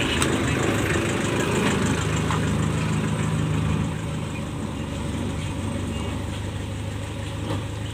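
A passenger van's engine idling with a steady low hum, dropping slightly in level about halfway through.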